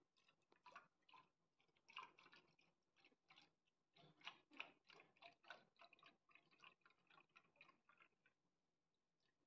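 Milk pouring from a carton into a saucepan, heard faintly as a run of irregular short glugs and splashes, several a second, that stops about eight seconds in.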